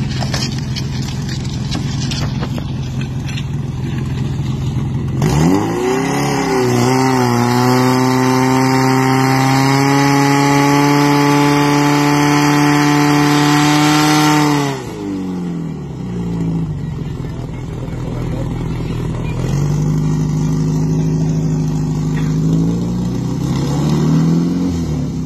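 Portable fire pump's engine running, then revved hard about five seconds in and held at high revs for about nine seconds to drive water through the hose line, before dropping back. It revs up again more moderately near the end and then falls off.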